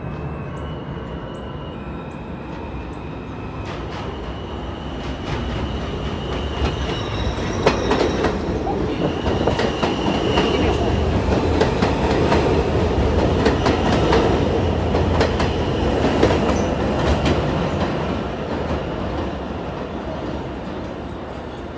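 New York City subway train passing through an elevated station: wheels clacking over rail joints with high-pitched wheel squeal. It grows louder from a few seconds in, is loudest in the middle, then fades.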